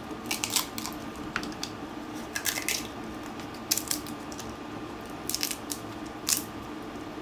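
Dry tamarind pod shells cracking and crinkling as they are peeled off by hand, in short, irregular crackles.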